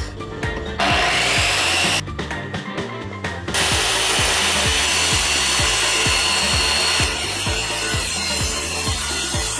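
Electric circular saw cutting through plywood, its cutting noise dropping away briefly near the start and again for about a second and a half around two seconds in, over background music with a steady beat.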